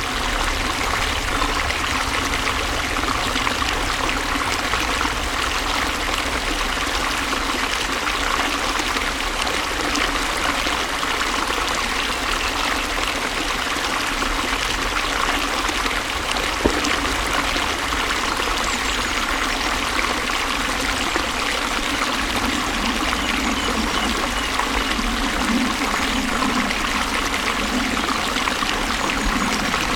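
Water flowing steadily, an even rushing trickle with no let-up, and one brief tap about halfway through.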